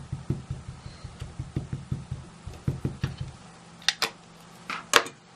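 Photopolymer stamp being tapped over and over onto an ink pad to ink it, soft low taps about four times a second that stop after about three and a half seconds. Then a few sharp clicks, the loudest near the end.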